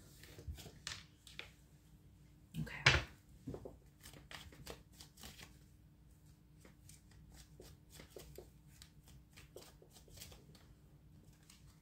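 A deck of tarot cards being shuffled by hand: a faint, irregular run of soft clicks and rustles from the card edges, with one louder snap of the cards about three seconds in.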